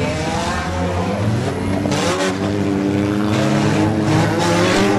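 Several demolition-derby car engines revving hard at once, their pitches rising and falling as the cars accelerate and slide around the dirt track. Bursts of rushing hiss come in about two seconds in and again over the last second and a half.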